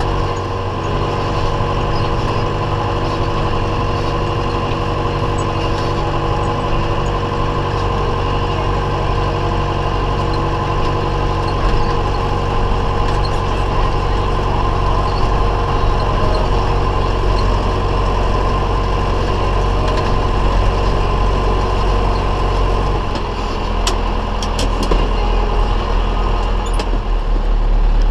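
Diesel engine of harvest machinery running steadily, with the whir of machinery over it. About 23 seconds in the engine note shifts lower and a few sharp clicks are heard.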